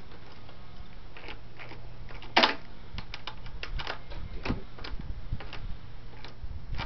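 Irregular metallic clicks and clinks of a hand tool on the intake elbow's hose clamps under the hood, with one sharper, louder click about two and a half seconds in.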